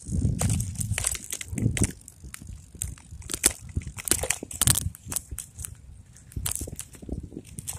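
Crackling and buffeting on earbud microphones while riding a road bike over bumpy, cracked pavement: dense, irregular clicks and scrapes, with low rumbling gusts of wind in the first couple of seconds.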